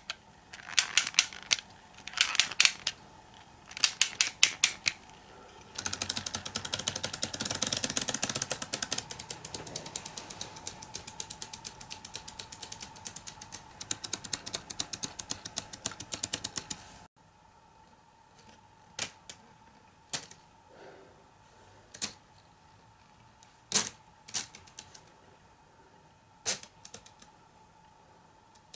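3D-printed plastic gyrotourbillon mechanism: the winding ratchet clicks in quick bursts as the drive spring is wound by hand, then the gear train and escapement run with a dense, fast clicking that gradually fades. After an abrupt break near the middle, the movement gives only single sharp ticks a second or two apart, barely running.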